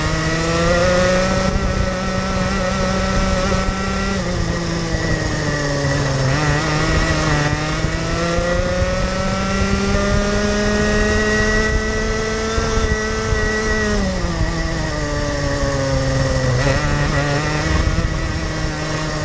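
Rotax Junior Max 125 cc two-stroke kart engine heard close up from the driver's seat, revving through a lap. The engine note falls about four seconds in as the kart slows for a corner, climbs for a long stretch, drops sharply at about fourteen seconds, then climbs again near the end.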